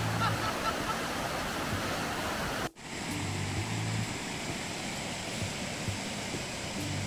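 Mountain stream rushing over rocks, a steady hiss of water. It cuts out for an instant about three seconds in and resumes a little quieter.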